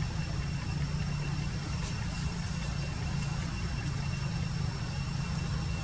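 Steady low engine-like hum with a thin, steady high whine over it, and a few faint ticks.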